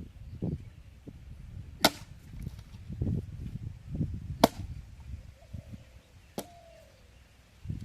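Three sharp chopping strikes, roughly two seconds apart, with softer knocks and thuds between them.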